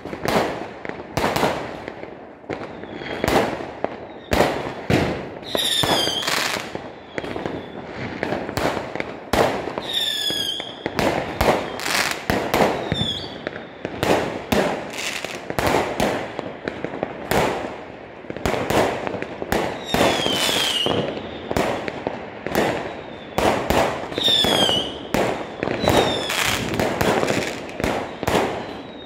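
Fireworks going off in quick succession: a dense run of sharp bangs, with short whistles falling in pitch several times.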